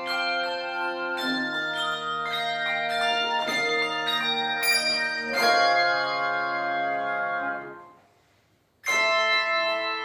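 Handbell choir ringing chords of sustained handbell tones. About eight seconds in the ringing dies away to a brief near-silence, then a new loud chord is struck.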